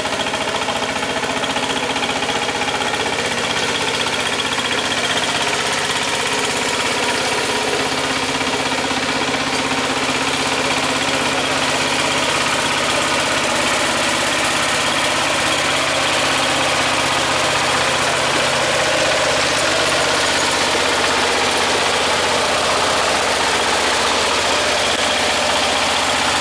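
KMW Mega T 15 power tiller's single-cylinder diesel engine running steadily under load while its cage wheels puddle a flooded paddy field.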